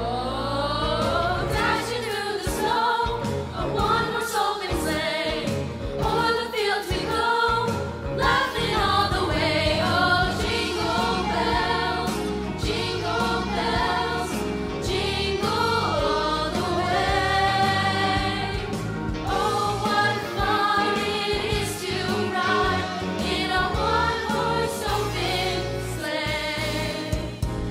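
Middle-school choir singing a winter song in harmony, with a steady bass accompaniment underneath.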